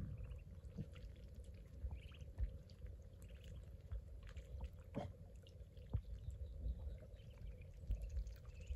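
Muscovy ducklings dabbling and paddling in shallow pond water, with small splashes and clicks, and brief high peeps now and then.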